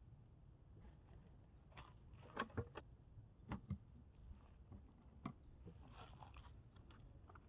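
Quiet background with a scatter of faint clicks and light knocks, a cluster about two and a half to four seconds in and a single one a little after five seconds: a person walking up over dry grass and starting to handle the motorcycle's luggage cases.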